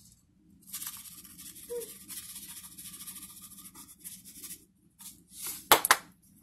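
Adobo seasoning being shaken out of a plastic spice shaker onto raw chicken wings: a rapid, dry rattle lasting about four seconds. A single sharp knock follows near the end.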